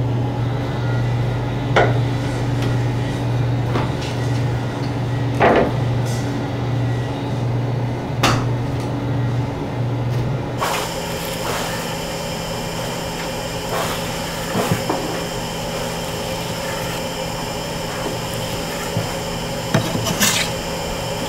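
Kitchen handling sounds: scattered knocks and clicks as fish fillets and plastic trays are handled on a cutting board, over a steady low electrical hum. About halfway through the hum gives way to a different steady background, with a few sharp knife taps on a wooden board near the end.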